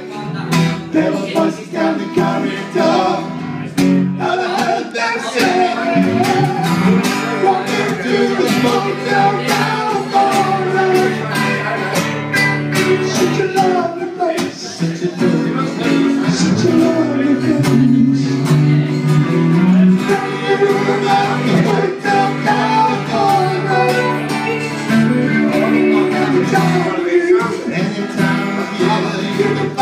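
Live band music: an acoustic guitar strummed together with a Stratocaster-style electric guitar, and a man singing over them.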